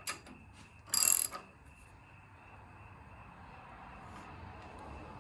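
Metal clinks from hand tools and steel frame parts, with one loud, ringing metallic clatter about a second in.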